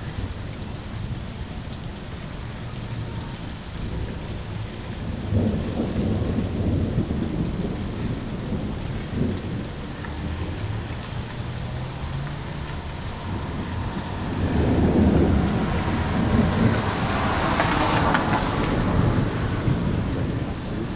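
Thunderstorm noise: a low, uneven rumble with a hiss of rain, swelling louder about two-thirds of the way through.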